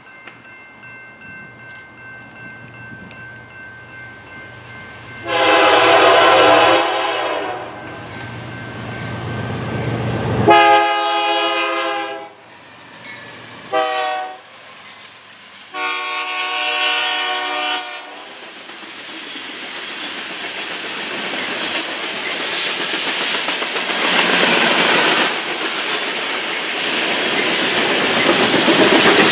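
Horn of a BNSF GE Dash 9-44CW diesel locomotive sounding the grade-crossing signal: two long blasts, a short one and a long one. The locomotive then passes, and the covered hopper cars follow with a steady rumble and clickety-clack that grows louder toward the end.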